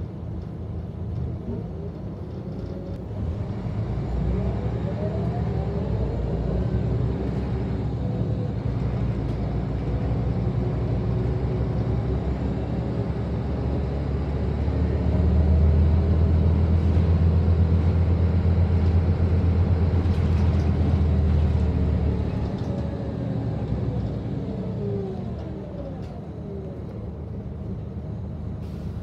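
Scania L94UB bus's rear-mounted five-cylinder diesel engine, heard from inside the passenger cabin as the bus pulls away. The engine note rises as it accelerates about two seconds in and becomes a heavy low drone that is loudest around the middle. The note falls away as the bus eases off a few seconds before the end.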